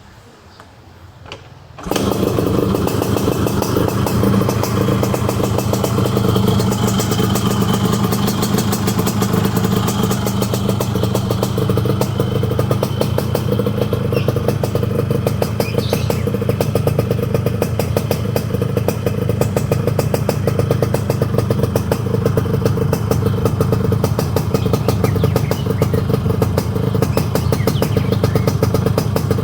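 Yamaha RX-King's two-stroke single-cylinder engine starts about two seconds in, then runs steadily at idle with a dense, even run of exhaust pulses.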